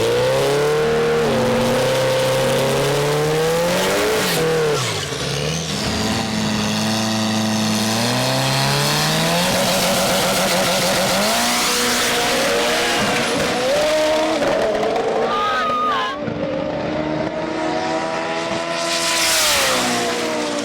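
Turbocharged Toyota Tacoma drag truck's engine running hard on a drag-strip pass, its pitch climbing and dropping several times as it revs and shifts. A louder rush of noise comes near the end.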